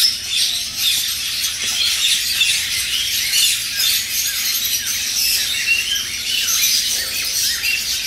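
Many caged birds chirping and chattering together: a dense, unbroken chorus of short high chirps with no single call standing out.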